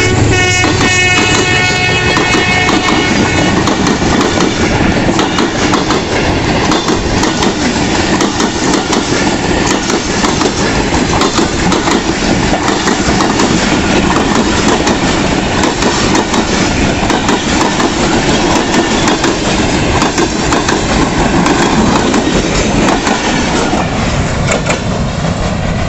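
Pakistan Railways express passenger coaches rolling past at speed, wheels clattering steadily over the rail joints. In the first few seconds a pitched tone from the receding diesel locomotive fades out.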